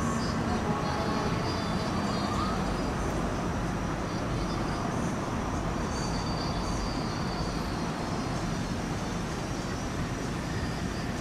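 Steady rumble of street traffic, slowly getting quieter, with a faint siren wail trailing off in the first two or three seconds as an emergency vehicle moves away.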